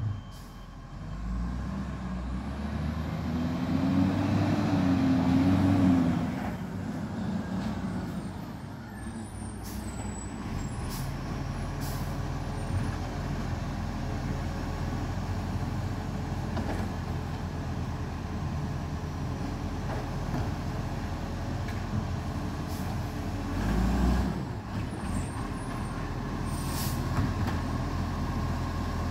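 Diesel engine of a garbage truck working a street, revving up about two seconds in and holding a wavering higher pitch for a few seconds before dropping back to a steady run. A short, louder burst comes near the end.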